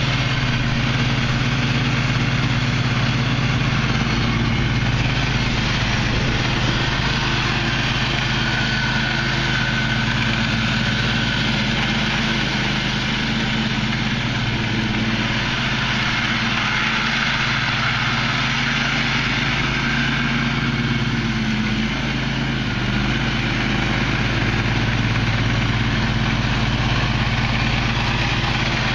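The 22 HP engine of a Husky riding mower with a 46-inch deck, running steadily at an even speed.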